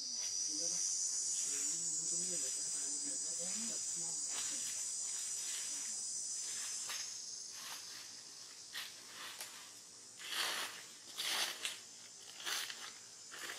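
Insects droning in a steady high buzz that stops about seven seconds in, followed by a few short rustles.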